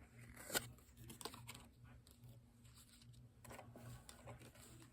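Faint, scattered clicks and light taps of playing cards being handled and turned over one by one.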